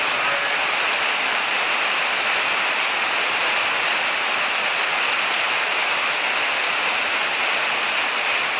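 Heavy rain pouring down in a steady, unbroken hiss.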